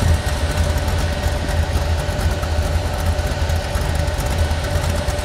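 Pickup truck engine idling steadily, a low even rumble with a faint steady tone over it.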